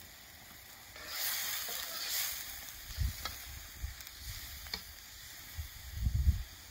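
Potatoes cooking in broth in an iron pan over a wood fire: a burst of sizzling about a second in, then a metal spoon stirring and clicking against the pan a couple of times. A few low thumps come near the end.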